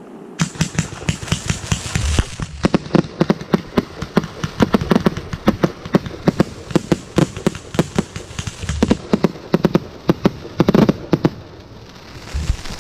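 Fireworks going off in a rapid barrage of sharp bangs, several a second, with crackling between them. The barrage stops about eleven seconds in.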